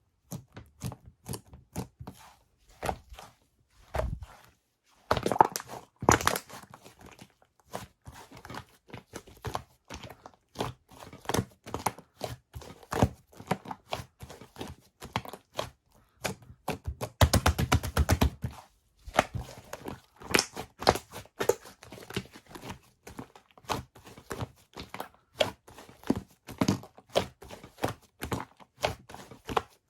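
Purple fluffy slime being squished and pressed by hand, making many small sticky clicks and crackles. About seventeen seconds in there is a burst of fast, dense crackling lasting over a second.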